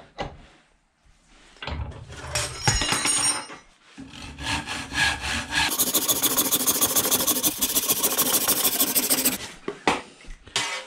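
Hand saw cutting through a seasoned cherry-wood branch. It starts with a few uneven strokes, settles into steady, quick strokes about four seconds in, and stops shortly before the end.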